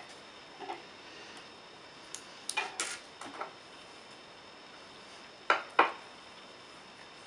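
Hands handling yarn and small crochet tools at a tabletop: a few light clicks and taps, a short run of clicks in the middle, then two sharp clicks close together near the end.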